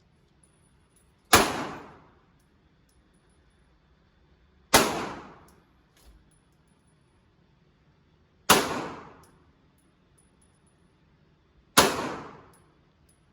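Four single gunshots, roughly three and a half seconds apart, each followed by a short echoing decay.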